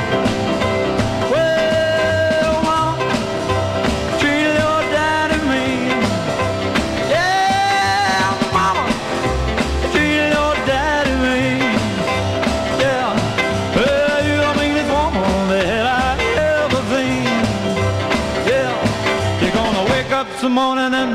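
Background rock and roll music with a steady beat.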